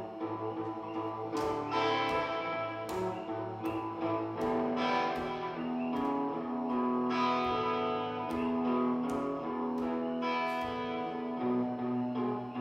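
Electric guitar playing a blues: chords struck every second or so and left ringing, with low notes held underneath.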